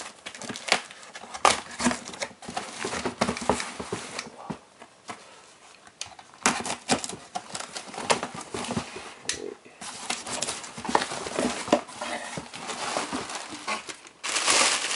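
A corrugated cardboard shipping box being opened by hand: irregular scrapes, taps and rips on the cardboard as the top is worked open. Near the end comes a louder burst of crinkling as packing material is pulled out.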